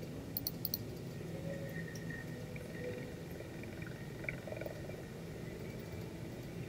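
Faint steady hiss and low hum of an air traffic control radio recording, with a few soft clicks about half a second in. The frequency stays silent with no reply.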